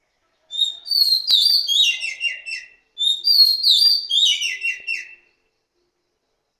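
A bird singing two phrases of whistled notes, each starting high and stepping down in pitch, with a short gap between them. A single sharp click sounds during the first phrase.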